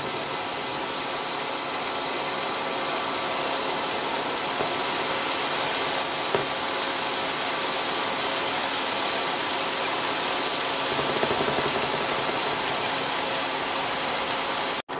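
Bread slices and slices of dry-cured pork neck sizzling steadily in margarine in a frying pan.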